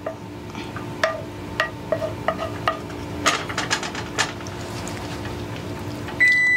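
Wooden spoon stirring a thick sauce in a skillet, scraping and clicking against the pan at irregular intervals. Near the end an oven timer starts a steady, high-pitched beep.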